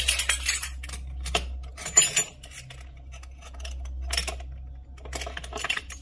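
Glass and metal clinking and knocking as a small glass bottle and a funnel are handled during bottling of oil. The clinks come in irregular short clicks, the sharpest about two seconds in, over a low steady hum.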